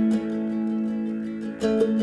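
Background music: plucked acoustic guitar playing sustained notes.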